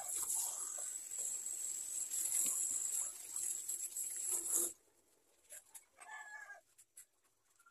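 Tap water running into a stainless steel sink while a plastic cup is rinsed by hand, a steady hiss that cuts off abruptly a little past halfway when the tap is shut. A short animal call follows from outside.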